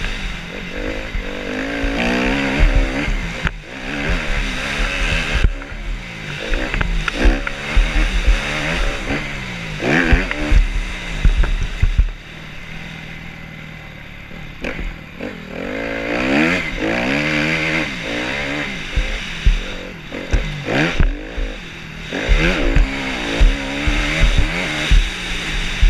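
Dirt bike engine at speed, its pitch climbing and dropping again and again as the throttle opens and closes, with a quieter stretch about halfway through where the throttle eases off. Wind rumbles on the camera microphone.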